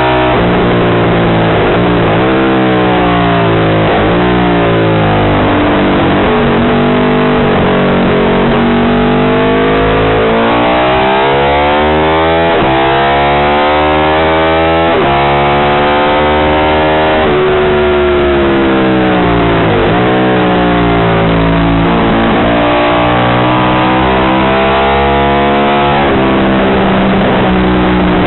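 Engine of a short-stroke Ducati Imola 750 bevel-drive V-twin racer at full race pace, its pitch climbing hard under acceleration, dipping at each gear change and falling away on the overrun into corners, several times over.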